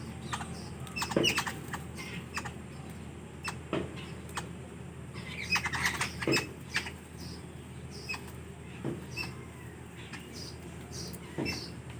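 Birds chirping briefly while feeding, with many short sharp clicks scattered through and a somewhat stronger short call or knock about every two and a half seconds.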